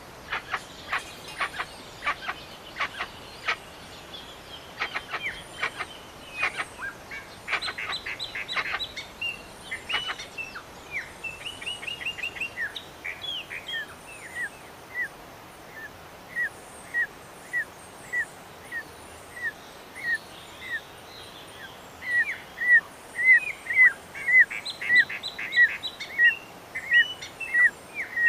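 Bird calls: a run of sharp clicks for the first ten seconds or so, then a long series of short, down-slurred whistled notes repeated about once or twice a second, getting faster and louder near the end.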